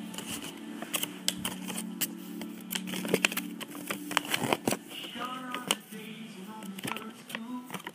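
Plastic blister packaging and card backing of a Beyblade pack crackling and clicking as hands handle and open it: a run of sharp, irregular clicks and crinkles.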